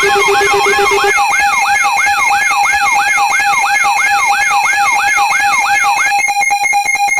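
Electronic emergency alarm: a siren tone swoops up and down about three times a second over steady alarm tones. A lower steady tone drops out about a second in. Near the end the sweep gives way to rapid pulsing beeps.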